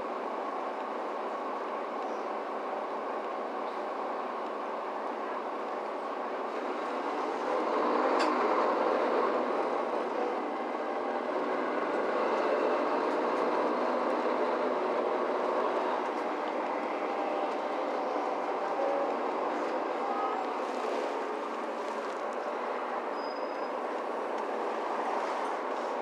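Cabin sound of a Mercedes-Benz Citaro C2 G articulated bus under way: the steady run of its Euro 6 tower-mounted diesel engine with road and body noise. It grows louder about eight seconds in, with a single click at that point, and eases back a little later on.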